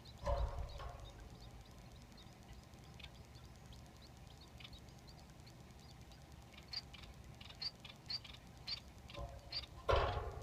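Society finches giving short, high chirps, sparse at first and coming quickly one after another in the last few seconds. A loud bump and rustle come just after the start and again near the end.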